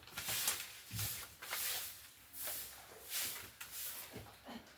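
Blind-bag packaging being handled and opened, crinkling and rustling in short irregular bursts.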